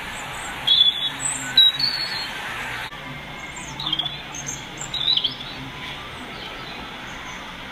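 Birds chirping in short scattered calls, a few clusters over several seconds, above a steady background hiss.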